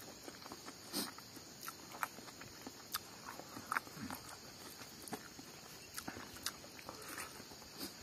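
A person chewing food, with faint, irregular mouth clicks and lip smacks, over a steady high hiss.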